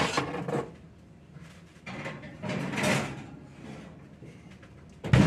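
A cast iron skillet being slid into an oven: a scrape as it leaves the stovetop, a longer scraping slide onto the oven rack about two to three seconds in, then the oven door shut with a sharp bang near the end, the loudest sound.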